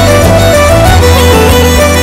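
Instrumental break in a Celtic-style folk song: a stepping lead melody over a steady low bass, with no singing.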